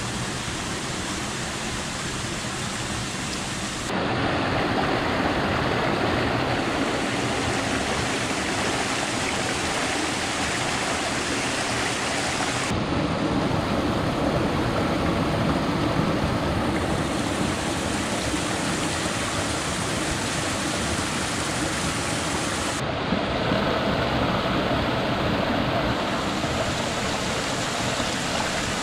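Rocky mountain stream running over small cascades: a steady rush of water. The rush changes abruptly in tone and loudness three times, getting louder and fuller about four seconds in.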